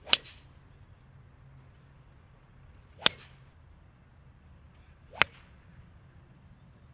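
Three golf tee shots: the sharp, ringing ping of a metal-headed driver striking the ball off the tee, the second about three seconds after the first and the third two seconds after that.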